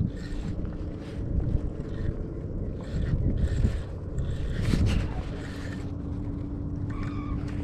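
Wind rumbling on the microphone, with the soft whir of a spinning reel being cranked in short turns as a jig is worked back in.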